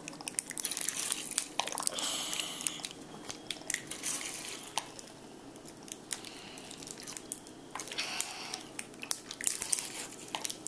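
Plastic squeeze bottle of lime juice squeezed by hand again and again to squirt juice into a metal measuring cup, its sides crackling and crinkling in irregular clicks and bursts, with a quieter stretch in the middle.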